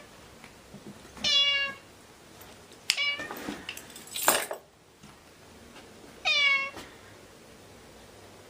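Domestic cat meowing twice, each a short meow of about half a second. Between the meows, a sharp click and then a short noisy burst.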